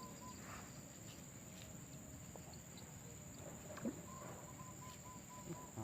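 Quiet outdoor ambience: a steady high-pitched insect drone, with a few faint short calls and small clicks over it.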